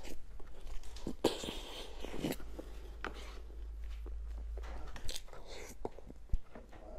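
Close-miked eating sounds from spoonfuls of a soft cream-glazed cake with tapioca pearls: wet chewing and slurping, with scattered sharp clicks as the spoon goes in and out of the mouth. A steady low hum runs underneath.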